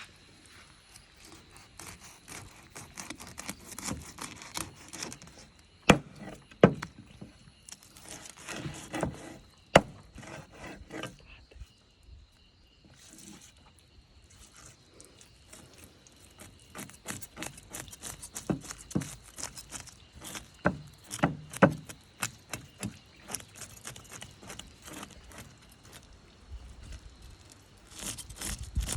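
Knife chopping and scraping at a fish on a wooden cutting block: irregular sharp knocks, a few heavy strikes, stretches of scraping, and quicker runs of small taps.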